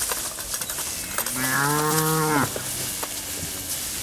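Hereford beef cow mooing once. The long call starts about a second in, rises and then holds for about a second and a half before trailing off. There are light rustling clicks of the herd pushing through tall brush.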